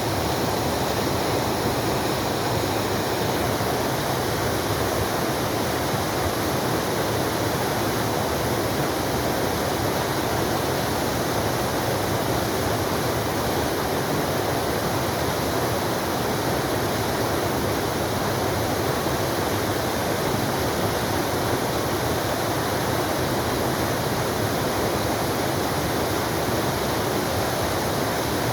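Waterfall in a forest: water falling and splashing in a steady, unbroken rush.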